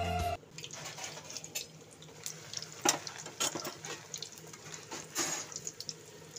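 Raw samosas deep-frying in hot oil in a steel kadhai: a steady sizzle with scattered sharp crackles and clicks.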